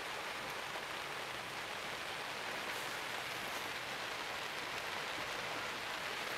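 Steady rain falling, an even hiss with no separate sounds standing out.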